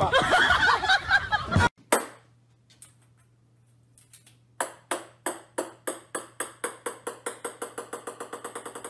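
Opens with a short stretch of music and voices that cuts off suddenly. Then a small ball bounces on a hard wooden floor: one knock, a pause, then a run of bounces about halfway through that come quicker and quicker and fainter as the ball settles.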